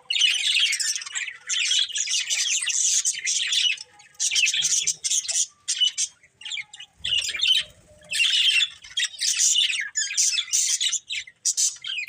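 Budgerigars chattering and chirping in fast, warbling bouts, broken by short pauses.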